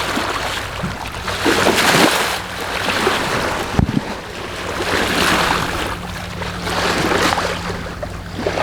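Water rushing and splashing along a sailboat's hull in repeated surges, with wind on the microphone and a steady low hum underneath. A single low thump comes a little before halfway.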